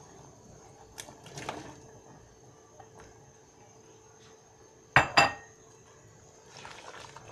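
Two sharp clinks against a cooking pot, a fifth of a second apart, about five seconds in, after a fainter knock about a second in.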